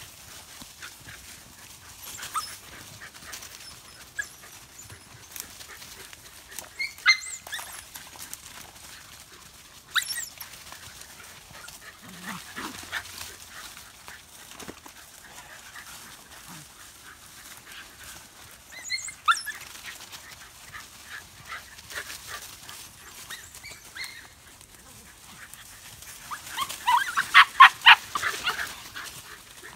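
Shetland sheepdogs running through dry leaf litter, the leaves rustling under their paws with a few sharper sounds, then a rapid burst of high barking about two seconds long near the end.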